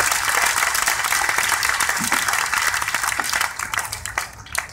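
Audience applauding at the end of a talk. The clapping is strong at first, then thins out over the last second or so into a few scattered claps.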